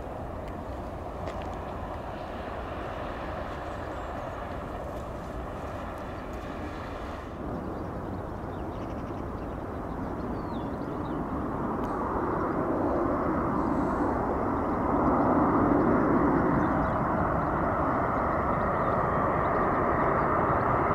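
Airliner jet engine noise. First comes an Airbus A350-900 rolling out just after touchdown. After a break at about seven seconds comes an Airbus A330-200 on final approach, a steady jet rumble that grows louder from about ten seconds in and stays strong to the end.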